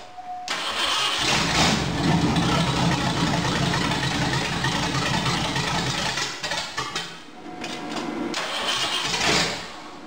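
Ford 302 (5.0) V8 starting up and running loud through open short-tube headers with no exhaust behind them. It catches about half a second in, sags around seven seconds in, then picks up again.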